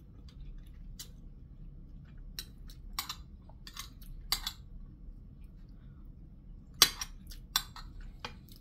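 A metal fork clinking and scraping against a ceramic plate while scooping rice: a few scattered sharp clicks, the loudest about two-thirds of the way through.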